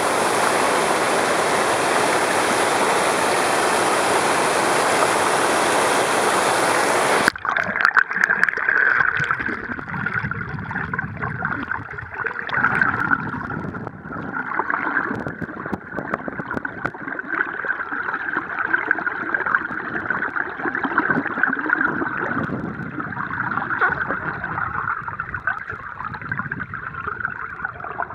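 Water heard by a submerged camera: a steady, even rush that cuts off abruptly about seven seconds in, then a quieter, uneven gurgling with scattered faint clicks.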